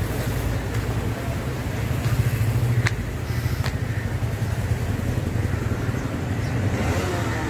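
Road traffic: a steady low rumble of passing cars, swelling about two seconds in, with a couple of short clicks about three seconds in.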